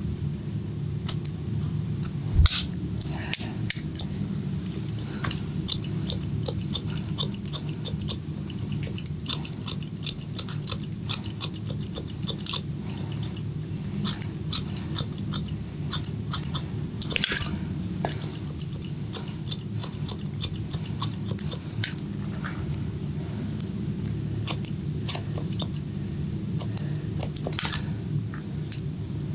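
Barber's scissors snipping hair close to the microphone: many quick, crisp, irregular snips over a steady low hum.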